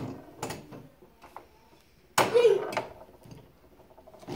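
Plastic rods and player figures of a tabletop mini foosball game clicking and knocking against the ball and frame, with a loud knock about two seconds in. A short vocal exclamation follows the loud knock.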